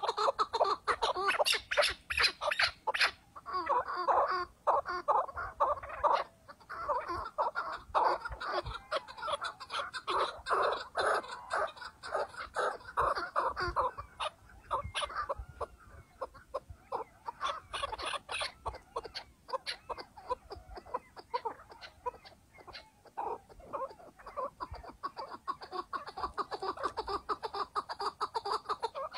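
Chukar partridges calling: long runs of quick, harsh clucking notes, one after another, easing off for a few seconds about halfway before picking up again.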